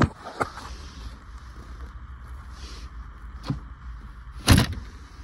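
Handling sounds from a car's shifter and centre console plastics: a few sharp clicks and knocks, the loudest a single knock about four and a half seconds in.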